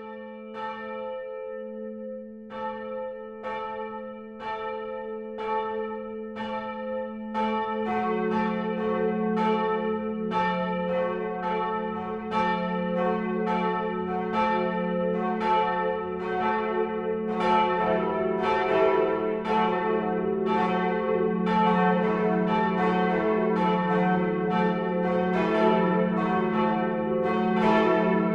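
Church bells ringing in a peal: one bell strikes alone at a steady pace, then a second bell joins about a quarter of the way in and more join past the middle, the sound growing fuller and louder.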